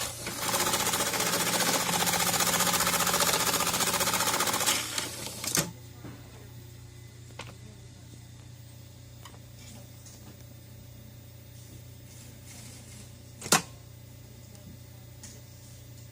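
JUKI AMS-210E computer-controlled pattern sewing machine stitching rapidly for about five seconds, sewing a rubber label onto heavy leather, then stopping. A steady low hum carries on after it stops, and a single sharp clack comes late on.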